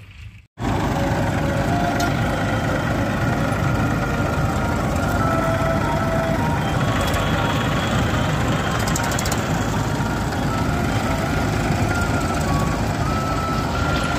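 Tractor's diesel engine running steadily close by, a loud even rumble that begins abruptly about half a second in, with faint high tones stepping in pitch above it.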